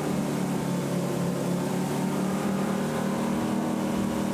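Wakeboard towboat's engine running at a steady speed, an even drone that holds one pitch throughout.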